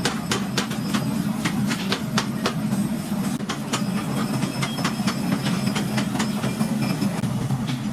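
Forging-shop machinery running with a steady low hum, overlaid by frequent sharp metallic knocks and clinks, several a second at an uneven pace.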